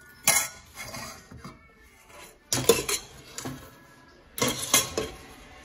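A spoon scraping and knocking against a frying pan of bacon and garlic, in three short bursts of clatter.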